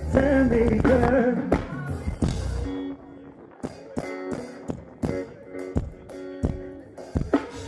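Live band music. For the first few seconds a full band plays with heavy bass and a wavering lead melody. About three seconds in it drops away to a lighter plucked guitar part with sharp taps.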